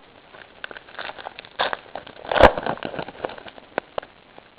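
Trading card pack and cards being handled: crinkling, rustling and scraping with scattered sharp clicks, loudest about two and a half seconds in.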